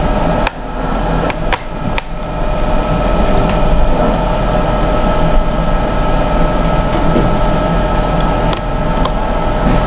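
Steady mechanical hum, with a few sharp clicks in the first two seconds as a laptop's RAM compartment cover is put back on.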